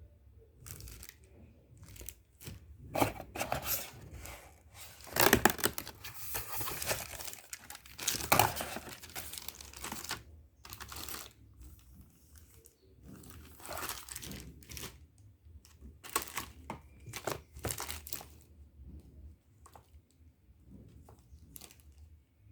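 Keyboard packaging being unwrapped: irregular crinkling and tearing, loudest in a few bursts in the first half, then lighter rustling.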